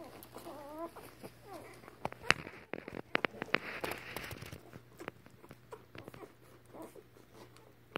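A short whimpering squeak near the start, then a run of sharp wet clicks and rustling from a litter of puppies nursing on a dog, latching and suckling as they shift on the bedding.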